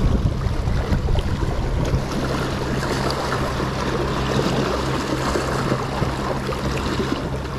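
Sea water washing against a rocky shore, an even rushing noise, with a steady low hum underneath.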